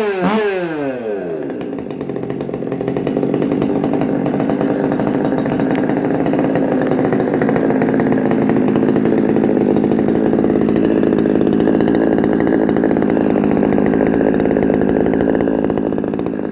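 Freshly rebuilt Stihl MS 200T two-stroke top-handle chainsaw running, new piston rings fitted. Its revs fall away in the first second or so, then it runs steadily, louder from about three seconds in.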